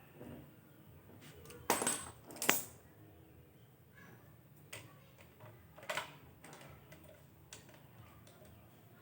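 Metal tools and small engine parts clinking and tapping against each other while piston cooling jets are fitted and bolted into an engine block: a few sharp clinks, the loudest a cluster about two seconds in, another near six seconds, with lighter ticks between.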